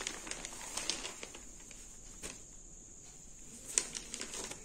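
Faint rustling of a folded linen-cotton saree being handled and laid flat, with a few light taps and clicks, the sharpest nearly four seconds in.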